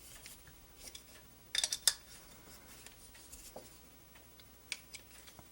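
A few light clicks and taps of the metal clamping block and its cap screws being handled and tightened, with a quick cluster about a second and a half in.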